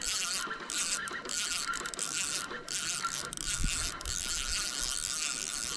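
Spinning fishing reel being cranked to retrieve line, its gears whirring in a run of turns separated by short gaps, with a faint steady whine.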